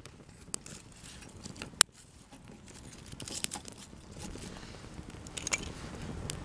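Sharp snaps of small twigs and kindling for a small campfire, with crackling and crinkling that grows busier in the second half.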